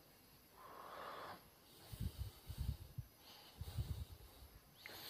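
Faint breathing close to the microphone, twice, with soft, irregular low thumps in between as a hand presses and turns a chicken leg in a steel bowl of flour.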